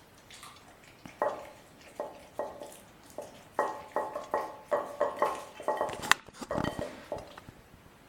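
German Shepherd puppy eating raw chicken, with a run of about a dozen sharp clinking knocks, like a dish being knocked about, and one louder snap about six seconds in.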